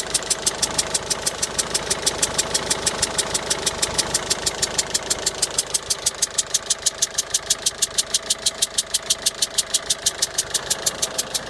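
Ford Focus II 1.6-litre engine idling steadily, with a quick, even ticking of some six ticks a second over the running.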